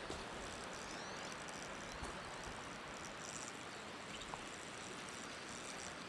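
Steady, faint outdoor background noise, an even hiss, with a few faint short high chirps.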